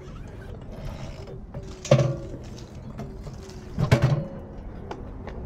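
Two metallic clunks about two seconds apart, the second a little longer, each with a short ring, from a small motorcycle being handled. A low steady background hum runs underneath.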